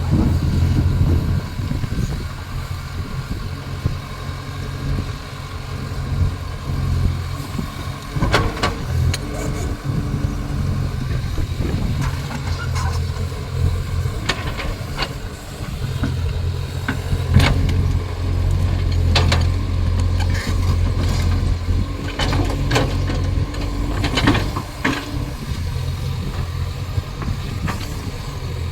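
Caterpillar excavator's diesel engine running with a steady low hum that swells and eases, with sharp knocks and clanks at intervals from about a third of the way in.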